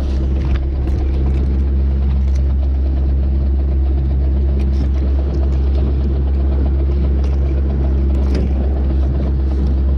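Small fishing boat's motor running steadily, a constant low drone, with a few light clicks over it.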